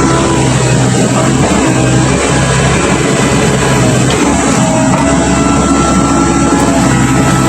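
Komatsu PC135 hydraulic excavator's diesel engine running steadily, with background music over it.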